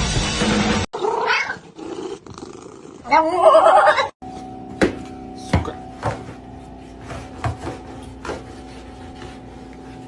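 A cat meowing twice, the second a loud drawn-out yowl, after a second of rock music that cuts off. Then a steady hum with scattered taps and knocks.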